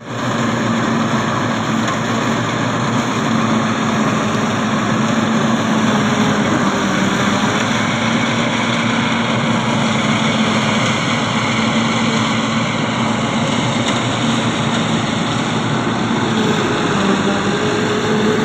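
Tractor engine running steadily at working speed, powering a PTO-driven silage cutter that chops maize stalks for silage. It is a constant, even-pitched hum over a broad mechanical noise.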